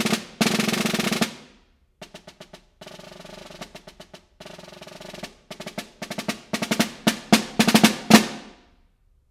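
Metal-shell snare drum played with wooden sticks: loud rolls and strokes that stop about a second and a half in, then after a short pause soft strokes and rolls that build louder and louder to a final loud stroke near the end, which rings briefly before the drum falls silent.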